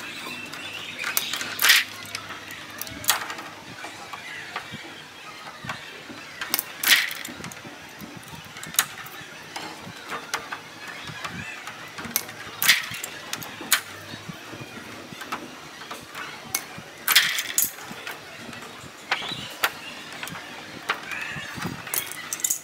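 Mylar drum-head film crinkling and snapping as the excess is trimmed away around the hoop with pliers, a sharp crackling snap every few seconds.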